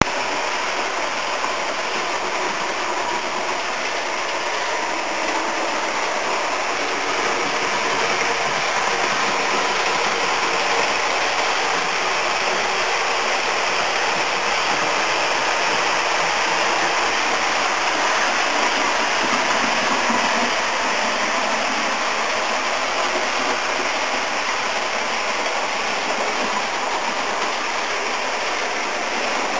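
HO scale model train, EMD F7 A+B diesel locomotives pulling a string of boxcars, running on the track: a steady rolling noise of wheels and running gear, a little louder in the middle.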